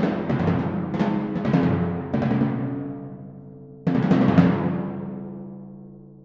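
Solo timpani on four pedal drums, struck with mallets: a quick series of strokes, then the ring fades until a loud stroke about four seconds in, followed by a couple more, and the drums ring and die away slowly.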